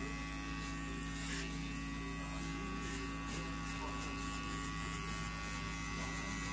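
Electric hair clippers running with a steady hum while cutting hair at the back of the neck.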